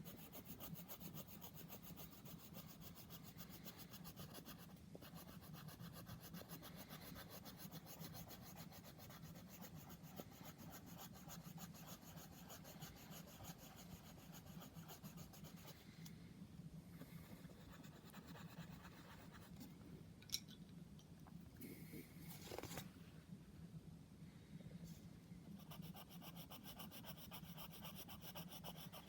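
Faint, rapid back-and-forth scratching of a colouring tool rubbing on paper, with a sharp click about twenty seconds in.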